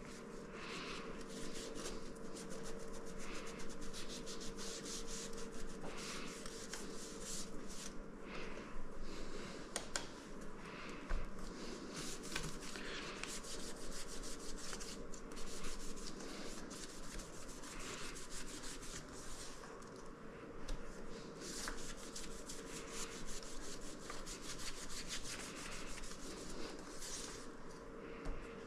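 A rag rubbing and wiping across the glass panels of a stained-glass light shade in short, uneven scrubbing strokes, cleaning off built-up grime.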